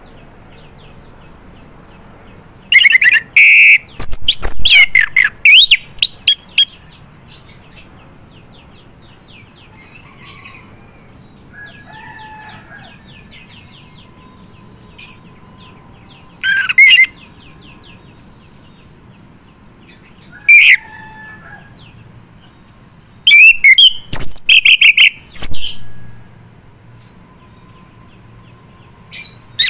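Male orange-headed thrush singing freely, in loud rapid phrases of sliding whistles and chatter that come in bursts several seconds apart, with faint notes between them.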